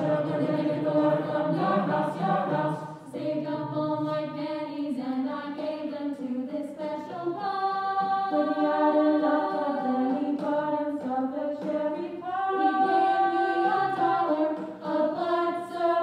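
Mixed choir of male and female voices singing a cappella in close harmony, moving between held chords, with one long sustained chord about halfway through.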